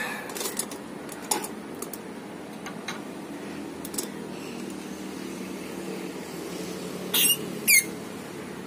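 A hydraulic jack being let down slowly under a car's front corner. There is a faint steady hum and a few light clicks, then two short sharp squeaks near the end, the loudest sounds.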